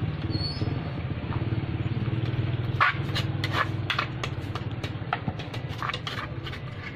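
A metal spoon scraping and clicking against the inside of a clay papaya-salad mortar while the salad is scooped out. The sharp clicks come in a quick run starting about three seconds in, over a steady low hum.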